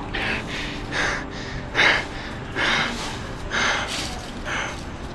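A person breathing heavily in short, sharp breaths, about one a second, the loudest about two seconds in.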